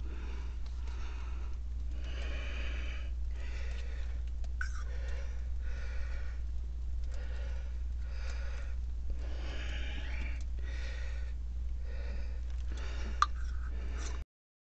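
A person breathing heavily and rhythmically close to the microphone, a puff about every second, over a steady low hum. There is a single sharp click about thirteen seconds in.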